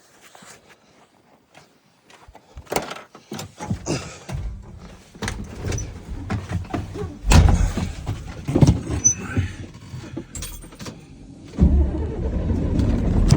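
Clicks and knocks of a truck cab door and controls, then a semi truck's diesel engine turning over and starting, with a loud surge as it fires. It settles into a steady idle near the end.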